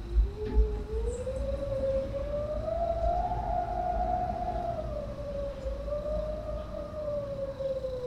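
Wind whistling through a gap in a window frame: one wavering, siren-like tone that slowly rises to its highest about three to four seconds in, then sinks again, over a low rumble of gusts with a few buffeting thumps near the start.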